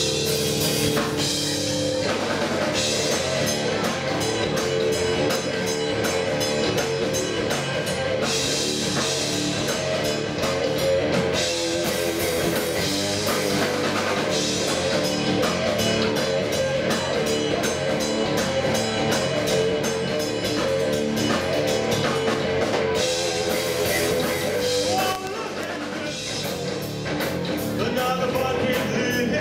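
Live rock band playing loudly: a Pearl drum kit, electric guitar and electric bass, dropping back briefly for a couple of seconds near the end.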